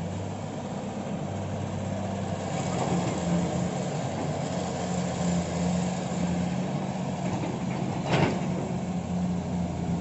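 Heavy-machinery diesel engine running steadily, with one short knock about eight seconds in.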